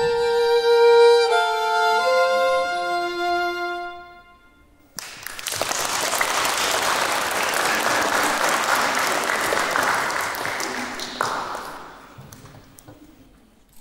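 Two violins playing the last few notes of a piece together, the final note dying away about three and a half seconds in. After a second of silence, an audience applauds for about six seconds, then the clapping fades out.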